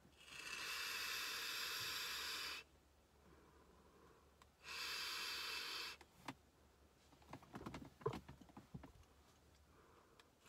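Two hits drawn on a Geekvape Nova box mod running at 70 watts: a steady airy hiss through the atomizer while the coil fires, the first lasting about two seconds and the second about one, each cutting off sharply. Soft exhales of vapour come between them.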